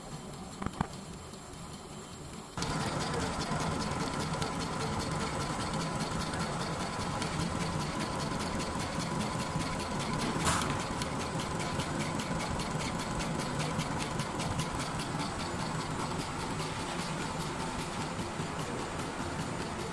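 Richpeace automatic sewing machine running while it sews a zigzag stitch. It gets louder about two and a half seconds in and then keeps a fast, even stitching rhythm. There is a short click before the jump and a sharper click about halfway through.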